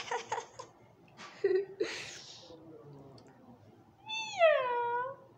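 One long, high meow about four seconds in, falling in pitch and then levelling off. It comes after a few soft breathy rustles.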